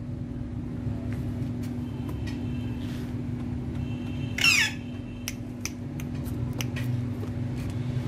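An Indian ringneck parakeet gives one loud, harsh squawk about halfway through. A steady low hum runs underneath throughout.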